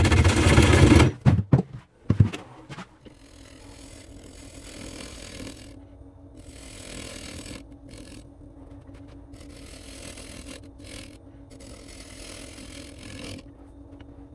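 A wood lathe runs with a steady motor hum while a turning tool cuts the spinning cherry-burl and epoxy egg in on-and-off passes, a hiss of shavings that comes and goes every second or two. The first two seconds are much louder.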